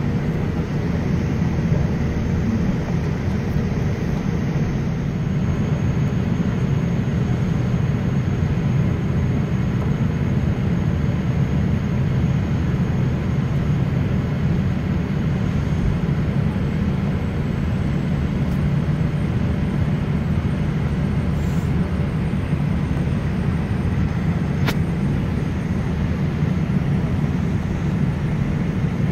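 Steady low rumble of a Boeing 787 Dreamliner's jet engines and airframe, heard inside the cabin as the airliner rolls along the runway.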